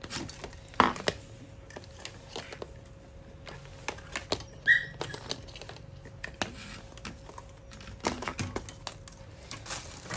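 Plastic wire-harness connectors being handled and plugged into a refrigerator control board: irregular clicks and knocks, with a brief high chirp about halfway through.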